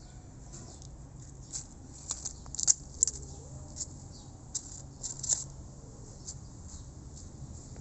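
Kitten chewing and tugging at fresh coriander leaves: a scatter of small crisp crunches and leaf rustles, thickest in the middle few seconds.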